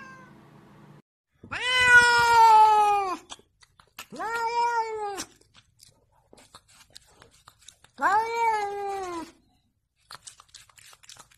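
Domestic cat meowing three times: a long drawn-out meow, then two shorter ones, each rising and then falling a little in pitch. Faint clicks follow near the end.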